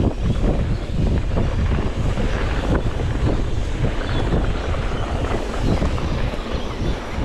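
Wind buffeting the microphone, a loud irregular rumble with a steady rushing hiss over it.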